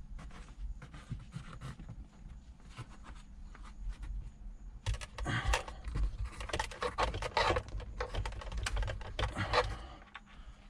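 A thin dash cam cable being pushed by hand into the gap between the car's headliner and windshield trim: irregular clicks and scratchy rubbing, busiest from about five seconds in until near the end.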